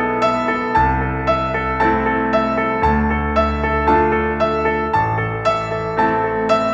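Background piano music: a gentle, even pattern of notes about two a second over a bass that changes every couple of seconds.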